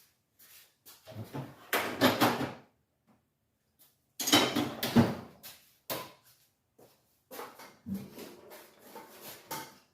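Metal clanking and scraping of a steel pry bar being worked against engine parts, in several bursts with short pauses; the loudest clank comes about five seconds in.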